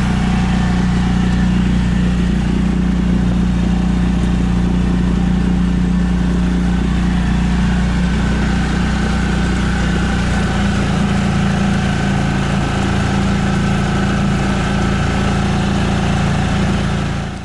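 Yamaha F4 four-stroke single-cylinder outboard motor running steadily, pushing the inflatable boat along under way. Its note shifts slightly about ten seconds in, and the sound fades out at the very end.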